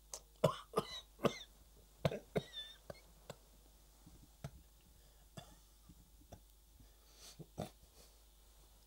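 A sick man coughing in a quick run of short coughs for the first couple of seconds, then a few fainter, spaced-out coughs.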